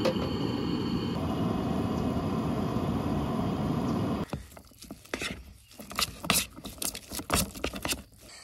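A Coleman propane camp stove burner running with a steady rushing noise, with a light knock at the start as a pot is set on the grate. About four seconds in this gives way to scattered clicks and scrapes of a utensil stirring instant noodles against the metal base of a collapsible pot.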